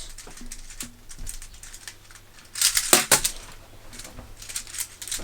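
Small fidget toy being twisted and folded in the hands, its parts clicking and clacking, with a quick flurry of louder clacks about three seconds in.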